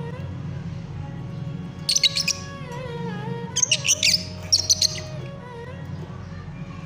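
Lovebirds chirping in short, sharp bursts, a cluster about two seconds in and a quick run of chirps from about three and a half to five seconds, over background music with a sustained melody.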